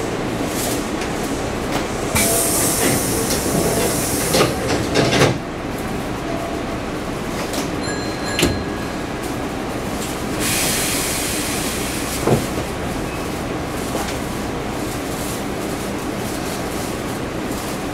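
Hankyu Kobe Line limited express electric train running on the rails, heard from the front of the train: a steady rumble of wheels on track, a few sharp clacks over rail joints, and two spells of high-pitched wheel noise, about two seconds in and about ten seconds in.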